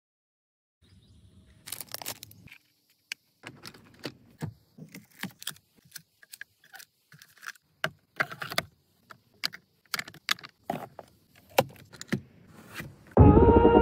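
Hard plastic car organizers and bottles handled and set in place: an uneven run of clicks, taps and knocks as items go into a clear plastic console organizer and a pump bottle goes into a cup holder. Music comes in loudly just before the end.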